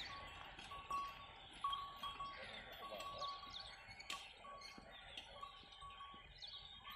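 Faint open-field ambience: birds chirping, over a thin steady high tone that breaks off and comes back every half second or so.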